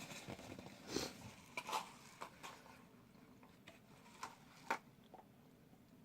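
Faint, scattered wet clicks and smacks of a person biting and chewing a sauce-soaked pambazo sandwich close to the microphone.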